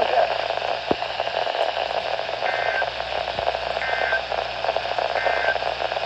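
Midland weather radio's speaker hissing with static, then three short two-tone data bursts about a second and a half apart: the EAS/SAME end-of-message codes that close a NOAA Weather Radio alert.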